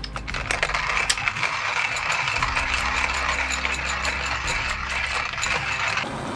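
Hand-cranked coffee mill grinding beans: a steady gritty crunching full of small cracks, which stops suddenly near the end.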